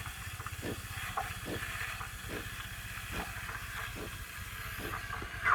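Delonghi Dedica Deluxe's steam wand steaming milk in a pitcher: a steady hiss over the machine's fast, even pump buzz, with faint ticks about every half second, as the milk nears hot-to-the-touch.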